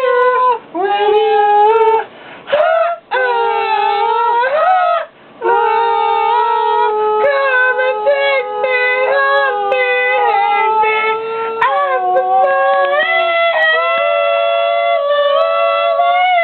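Wordless high-pitched singing: long held notes that slide up and down between pitches, broken by a few short pauses in the first five seconds.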